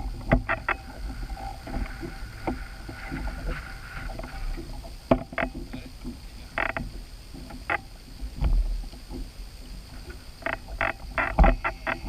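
Irregular knocks and clatters on a small boat on the water, in clusters with gaps between, over a steady low wind rumble on the microphone.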